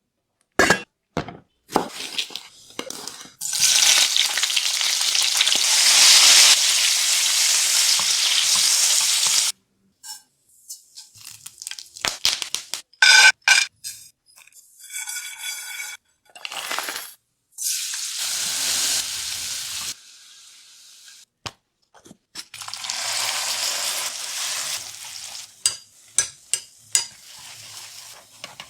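Hot oil sizzling in a pan as food is fried and stirred, in several separate stretches with short gaps between them. A metal utensil clinks and rings against the pot partway through, with a few sharp clicks near the start and end.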